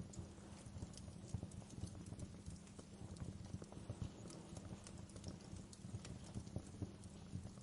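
Wood fire crackling in a fireplace: a dense low crackle with scattered sharp pops.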